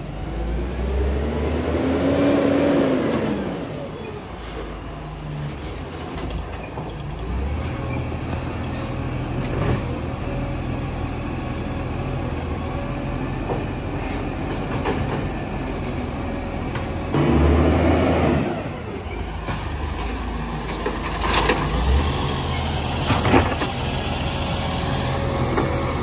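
Isuzu side-loader garbage truck running and moving along the street, its engine rising and falling in pitch twice. A few sharp knocks near the end come as its arm takes hold of a bin.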